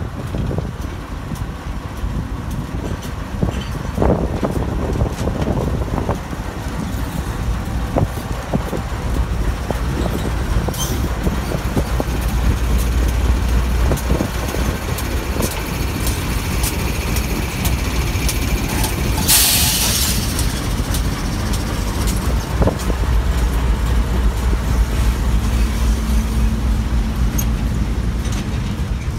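Pacific National NR-class diesel-electric locomotives passing close by under power, a steady low engine rumble with scattered clicks from the running gear. A short hiss of air comes about two-thirds of the way through.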